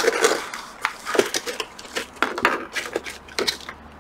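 Hands lifting and turning a plastic compartment tray of kit parts, with irregular clicks, knocks and the rustle of plastic packaging.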